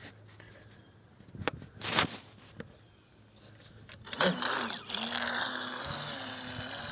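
Electric Black Marlin RC boat on a 3S battery: a few sharp knocks, then about four seconds in its motor spins up with a sudden loud start and runs on with a steady whine that wavers in pitch as the throttle changes.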